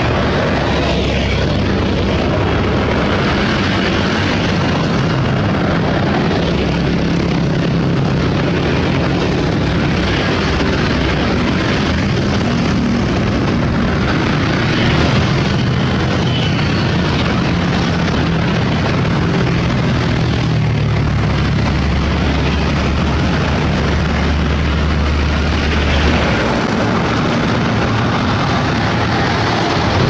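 Busy road traffic: many motorcycles and heavy vehicles, a bus and trucks, passing close by with a steady engine drone.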